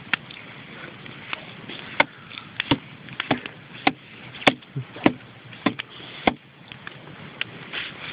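A knife hacking at a piece of wood: a dozen or so sharp, irregular chops, roughly two a second, thinning out near the end.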